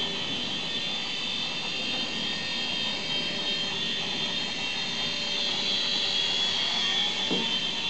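A UDI U801 toy RC helicopter flying, its small electric motors and stacked twin rotors giving a steady high whine. It grows louder a little past the middle as it comes close.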